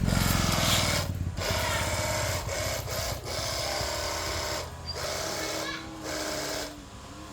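A small electric motor running in several short bursts with brief pauses between, each run holding a steady pitch.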